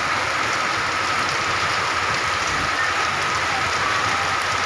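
Heavy rain pouring steadily onto a wet paved street, an even, unbroken hiss.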